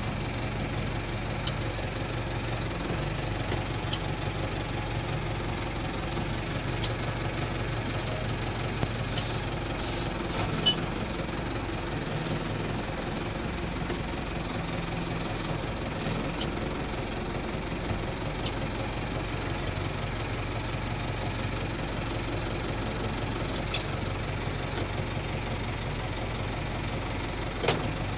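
Tractor engine running steadily while a Varmo 600 silage cutter works into the silage in a silo, with a few sharp clicks, the loudest about eleven seconds in.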